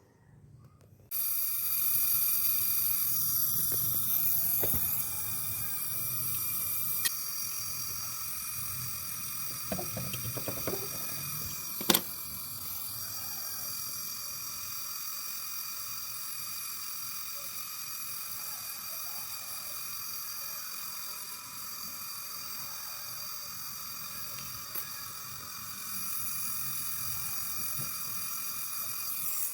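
Steady high-pitched hiss of pressurized gas escaping from a nozzle or pipe on refrigeration work. It starts abruptly about a second in and cuts off suddenly at the end, with a sharp tick about seven seconds in and another about twelve seconds in.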